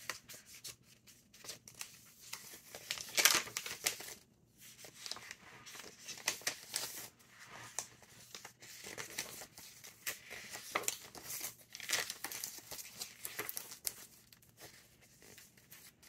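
Paper pages of a thick handmade junk journal rustling and crinkling as they are turned and handled by hand. The rustles come irregularly, the loudest about three seconds in.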